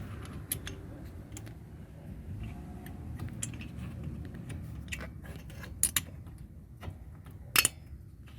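Scattered metallic clicks and clinks of brake parts, bolts and hand tools being handled as a brake caliper is fitted back over new pads, with two sharper clanks near the end.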